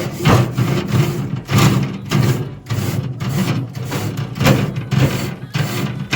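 Wire brush scrubbing the metal grate of a charcoal barbecue grill in repeated back-and-forth strokes, roughly two a second, scraping off old grease and burnt residue.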